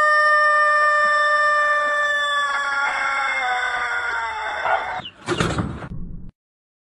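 Rooster crowing one very long held crow that sags slightly in pitch and breaks off about five seconds in. A brief burst of scuffling noise follows as the bird collapses onto the ground.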